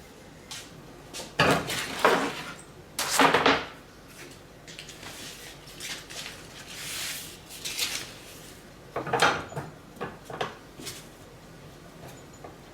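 A few separate clanks and knocks, like hard metal parts being handled and set down, with the loudest two in the first few seconds, more about nine and ten seconds in, and a soft hiss between.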